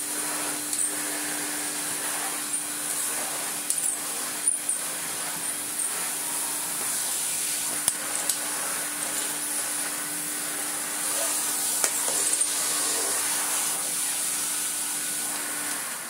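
Electrolux Z330 vacuum cleaner running steadily: a constant motor hum over a dense rush of air, with a few small clicks. It is switched off near the end and begins to run down.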